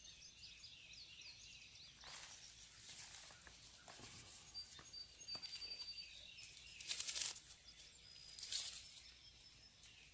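Faint rustling of honeysuckle leaves being stripped off the vine by hand, in a few short bursts, with birds chirping in the background.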